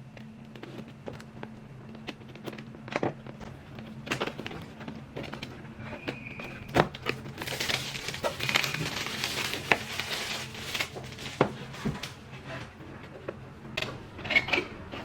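Plastic wrapping being cut and pulled off a product box: scattered clicks and scratches, with a stretch of crinkling about halfway through. A faint steady hum runs underneath.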